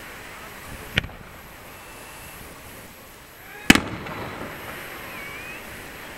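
Aerial firework shells bursting: a sharp bang about a second in, then a louder bang a little past the middle that trails off in an echo.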